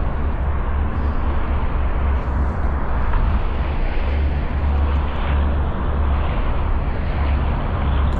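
Wind buffeting the camera microphone: a steady, fluttering low rumble with a hiss over it.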